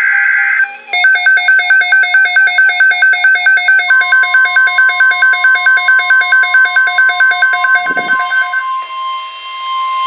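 Midland NOAA weather radio sounding its alert for a severe thunderstorm watch: a rapid high beeping, about five beeps a second, that starts about a second in and stops shortly before the end. It opens with the tail of a raspy burst of broadcast data tones, and from about four seconds in the broadcast's steady warning alarm tone sounds under the beeping.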